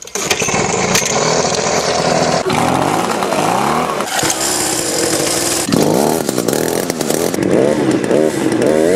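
Two-stroke chainsaw engine running at high revs, the throttle opened and closed over and over so the pitch keeps rising and falling, more quickly in the second half.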